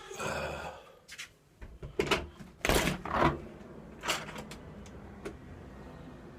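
A door being opened on the way out: rustling at first, then a few sharp clicks and knocks of a latch and door about two to four seconds in, after which only a steady low background remains.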